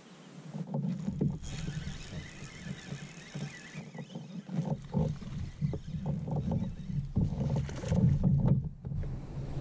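Spinning reel being cranked and rod and tackle handled in a kayak, with short knocks and rustles. Near the end a hooked fish splashes at the surface as the rod is swept up, the loudest moment.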